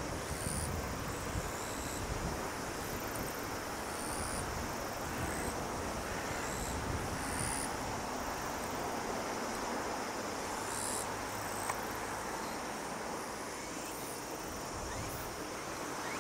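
Outdoor ambience: a steady hiss with wind rumbling on the microphone, which dies down after the first few seconds, and short high-pitched chirps every second or two.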